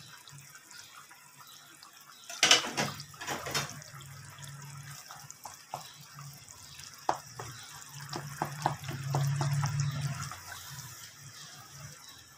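Tomato-onion masala bubbling and sizzling in a nonstick wok as its water cooks off. About two and a half seconds in a metal spatula clatters loudly against the pan, then scrapes and taps at it in a run of clicks while stirring.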